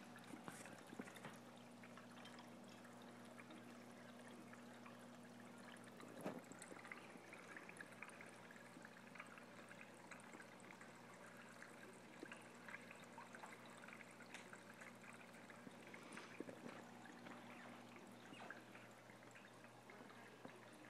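Faint water trickling and splashing in a large aquarium, over a steady low electrical hum from the tank equipment. There is one light knock about six seconds in.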